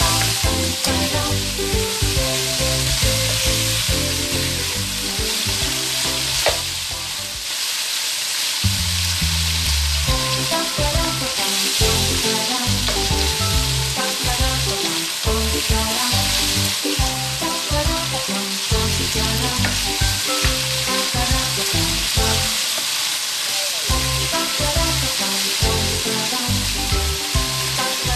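Pork ribs sizzling as they fry in a wok, stirred with a wooden spatula, over steady background music.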